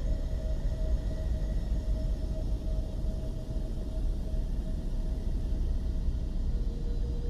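Ambient drone soundtrack: a steady low rumble with a hiss above it and a few faint held tones.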